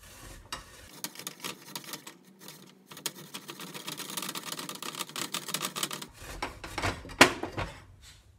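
Fresh ginger root being grated on a metal box grater over a stainless steel saucepan: a rapid run of rasping scrapes, densest in the middle, with a sharp knock about seven seconds in.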